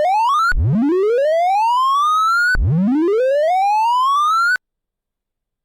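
Synthesized sorting-visualisation tones from merge sort, each pitch following an array value. A short sweep ends just after the start, then two long rising sweeps of about two seconds each glide from low to high as values come out in ascending order. The sound cuts off suddenly a little past four and a half seconds.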